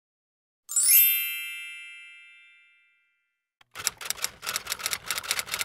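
A bright chime rings out about a second in, opening with a quick shimmer at the top and fading away over about two seconds. From near four seconds, rapid keyboard-typing clicks sound as the logo text is typed out.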